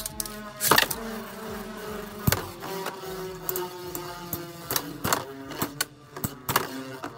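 Two Beyblade X tops spinning in a stadium: a steady whirring hum that slowly sinks in pitch as they lose spin, broken by sharp clacks as they hit each other or the stadium.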